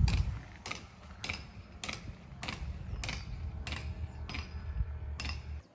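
A regular series of sharp knocks, about one every 0.6 seconds, over a low rumble that stops just before the end.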